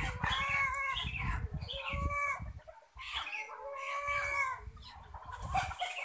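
Domestic chicken calling: drawn-out, arched notes in three or four bouts of about a second each, over a low rumble.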